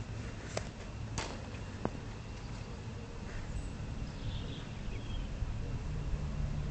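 Braided grass sling whipped through the air to throw a stone, with two sharp cracks within the first second and a half and a fainter click shortly after. A low rumble builds near the end.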